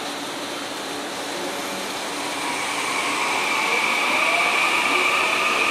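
Korail Class 311000 electric multiple unit pulling away from the platform: a traction-motor whine rises in pitch and grows louder from about two seconds in as the train gathers speed.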